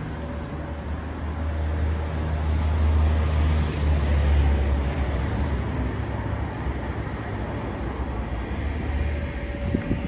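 A motor vehicle's engine rumbling as it passes close by, growing to its loudest about three to four seconds in and then slowly fading, over general street traffic.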